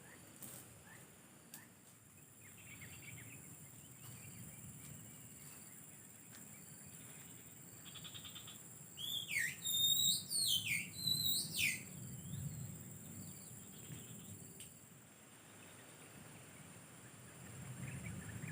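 Oriental magpie-robin singing a short burst of loud, sharply sweeping whistled notes about halfway through, over a steady high insect drone.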